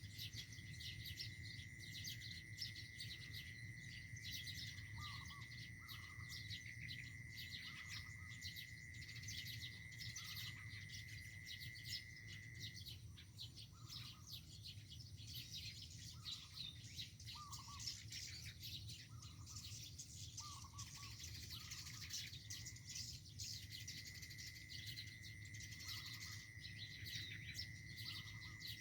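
Birds chirping with dense quick high notes and short lower calls every second or two. A steady high whine runs under it, stops about halfway and returns near the end.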